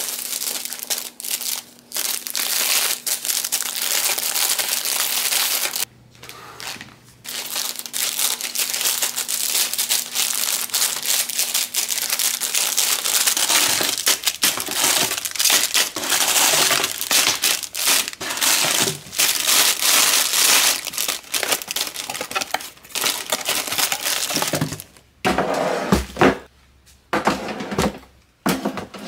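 Packaging being crumpled and crushed by hand: a dense crackling that pauses briefly about six seconds in, then breaks up into a few separate knocks and thumps in the last few seconds.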